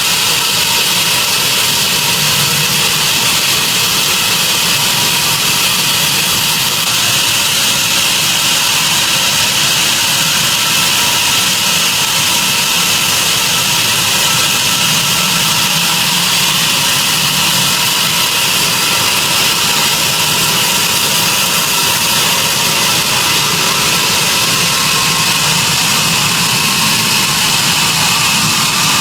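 Sawmill saw running steadily on a mahogany log: a loud, unbroken hissing drone with a faint steady whine.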